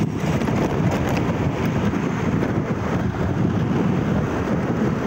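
Wind buffeting the microphone with steady road and engine noise from a motorcycle riding at about 28 km/h, a constant low rumble and rush.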